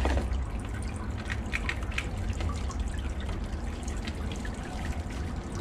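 Small plastic clicks and crinkles as a plastic battery pack case and its batteries are handled and opened, over a steady low rumble.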